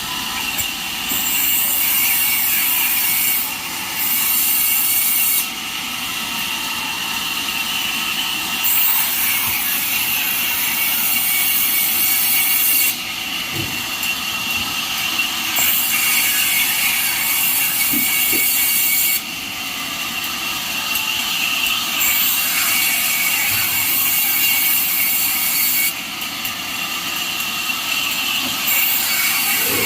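Band sawmill blade cutting through a jackfruit log: a steady rasping hiss over the machine's running noise, with the sharpest high part cutting in and out abruptly every few seconds.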